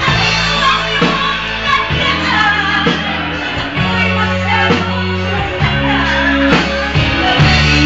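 Live band playing a slow song through a PA, with a male singer at the microphone over sustained bass notes and drum hits about once a second.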